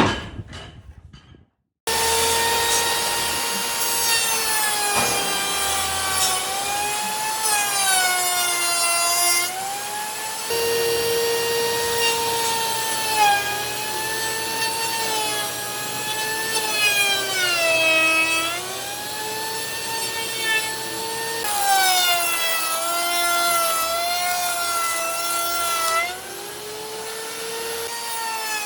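An electric power tool working wood: a steady motor whine with a rasping noise, its pitch sagging and recovering every few seconds. It starts about two seconds in, after a brief silence.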